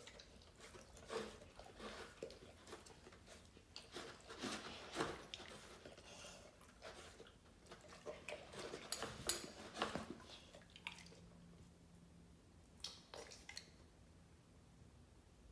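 A pit bull chewing and smacking at its food, with irregular wet mouth noises and small clicks, busier for the first ten seconds and sparser after.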